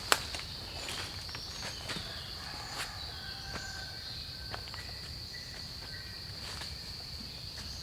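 Insects keep up one steady high-pitched drone, with scattered footsteps crunching on the forest floor and a few short, faint whistled notes.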